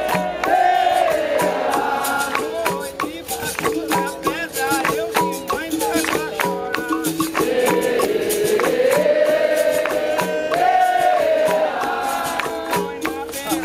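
Capoeira roda music: berimbaus, pandeiro and an atabaque drum keeping a steady rhythm, with the circle singing together and clapping in time.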